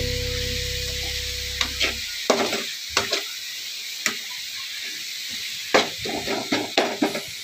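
Chopped cauliflower leaves and onion sizzling in a metal pan as a spatula stirs them, scraping and knocking against the pan a dozen or so times. A held low note of background music fades out about two seconds in.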